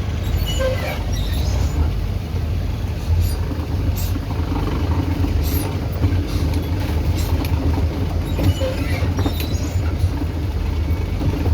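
Vehicle engine running with a steady low drone, with scattered knocks and rattles from driving on a wet dirt road.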